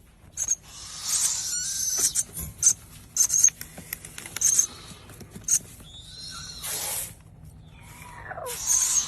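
Owl calling in short, high-pitched squeaks and chirps with scattered clicks, a breathy hiss about seven seconds in and a falling squeal near the end.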